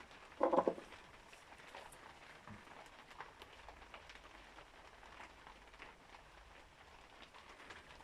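Faint, scattered small clicks and rustles from hands working a tube of glue while it is squeezed out.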